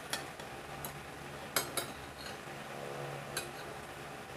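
Fork and spoon clinking and scraping against a plate while eating: about six sharp, separate clinks, the loudest two close together about a second and a half in.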